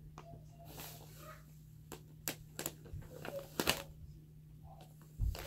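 Paper and painting supplies being handled close to the microphone: short rustles and several sharp clicks and taps, most of them in the middle and near the end, over a steady low hum.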